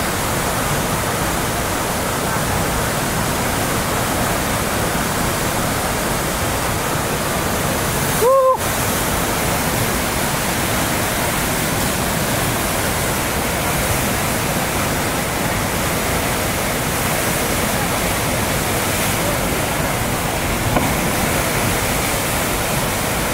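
Steady loud rush of churning whitewater pouring through a river standing wave. A short pitched sound cuts in briefly about eight seconds in.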